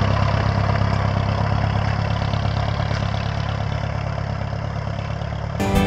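Pickup truck's engine running steadily as the truck pulls away up a gravel road, slowly fading with distance. Music starts near the end.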